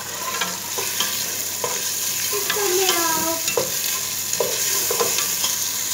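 Boneless chicken pieces and onions sizzling in hot oil in a steel pot, with a steady hiss. An orange spatula is stirring them, scraping and tapping against the pot many times.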